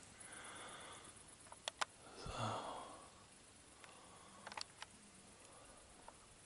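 A person's soft breathing, with a louder sigh-like exhale about two seconds in, and several sharp clicks scattered through.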